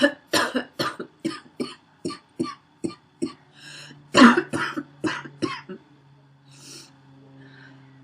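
A woman's wheezy, barking cough in fits: about nine quick coughs in the first three seconds, a breath in, then one loud cough followed by three more, and a couple of heavy breaths near the end.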